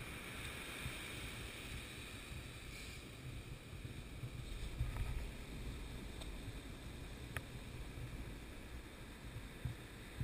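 Wind rumbling on the microphone over the wash of shallow surf running up the sand, loudest about five seconds in.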